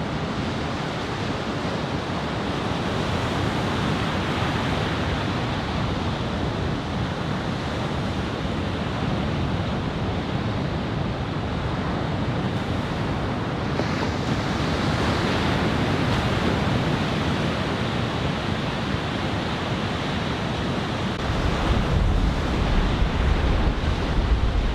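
Ocean surf breaking and washing in a steady hiss. From about 21 seconds in, wind buffets the microphone with a low rumble.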